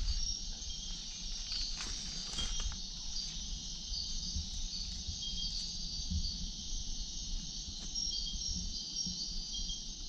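Chorus of rainforest insects: a steady high shrill with short chirps repeating over it, and a low rumble underneath.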